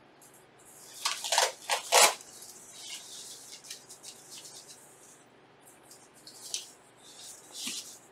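Crackling and rustling from hands handling small pre-cut thermal pads while fitting them to a graphics card. The sound is loudest in a cluster of crackles between one and two seconds in, followed by scattered fainter rustles and another short cluster near the end.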